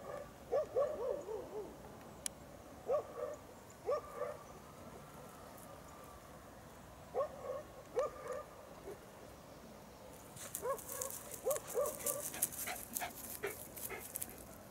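Distant dogs barking in short bouts: a quick run of about five barks at the start, scattered single barks, then another run near the end. Over that last run comes a spell of crackling rustles.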